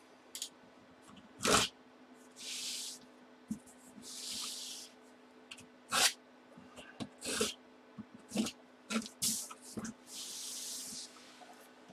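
A large cardboard shipping box being handled and turned over: sharp knocks and taps against the cardboard, and three scraping hisses of half a second to a second as the box slides and rubs.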